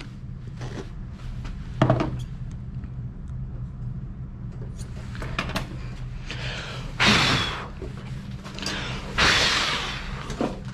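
Dog-grooming blower used to clear loose hair off the grooming table: a steady motor hum with two blasts of rushing air, about seven and nine seconds in, the second one longer. A single knock comes about two seconds in.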